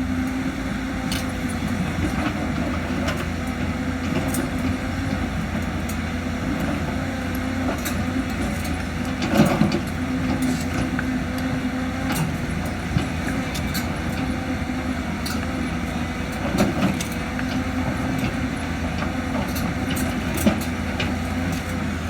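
Heavy diesel engine of earthmoving machinery running steadily at a constant speed, with a few brief knocks and clanks over it, the loudest about halfway through.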